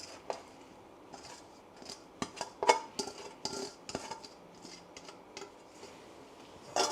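Scattered light clinks and taps of kitchen utensils against a bowl and dishes, a few louder ones between about two and three and a half seconds in.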